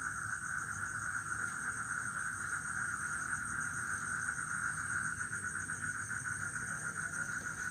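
Steady high-pitched trilling of night insects, a continuous chorus with a faint rapid pulse.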